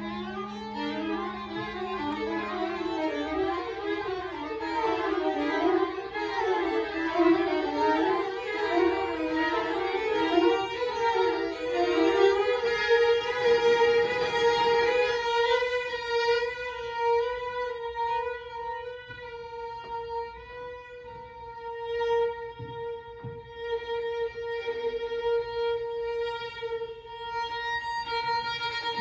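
String quartet playing: low held cello notes under rapid, zigzagging up-and-down runs in the upper strings for about the first fifteen seconds, then the texture settles into one long sustained bowed note.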